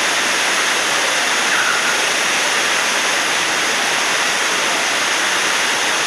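Waterfall rushing: a loud, steady wash of falling water that does not change.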